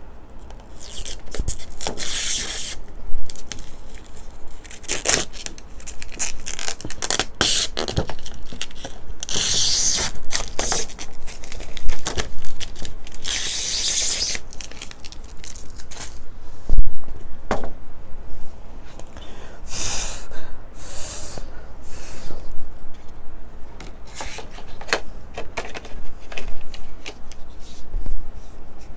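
Plastic protective film being peeled off a clear tablet case and crinkled, in several noisy surges, among repeated clicks and knocks as the case is handled, with one loud knock about 17 seconds in.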